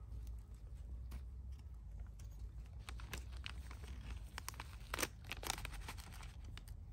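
Plastic food packet crinkling and tearing as it is handled and opened, with irregular small crackles and a couple of sharper ones about five seconds in, over a low steady rumble.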